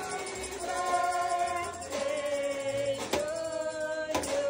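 Music with several voices singing long held notes, with a few sharp knocks about a second apart.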